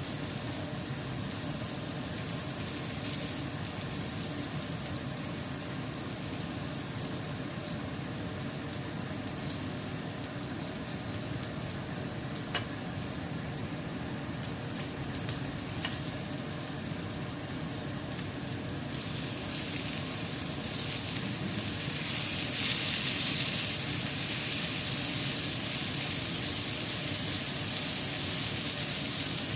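Salmon pan-frying with a steady, crackling sizzle and a couple of sharp pops near the middle. The sizzle grows louder and brighter about two-thirds of the way through.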